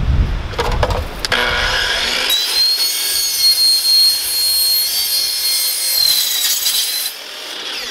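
Electric miter saw starting up about a second in and cutting through a vinyl siding corner post, with a steady high whine, then switched off near the end. The blade is mounted reversed (flipped over) so that it cuts the vinyl cleanly instead of shattering it. Wind rumbles on the microphone at the start.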